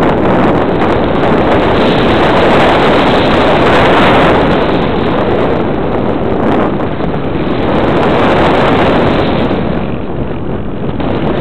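Loud, steady rush of air over the microphone of a small camera carried on a flying model aircraft, easing off briefly a couple of times.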